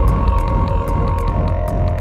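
Background music with held notes, over a steady low rumble.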